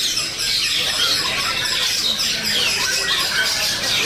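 Young long-tailed shrike singing a rapid, unbroken string of chattering and squawking notes, the fast 'sewing-machine' delivery that bird-contest fans prize.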